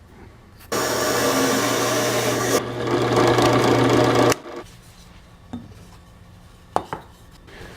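Power drill boring a hole through a wooden block: the motor starts about a second in and runs steadily with the rasp of the bit cutting wood, then stops after about four seconds, followed by a couple of light knocks.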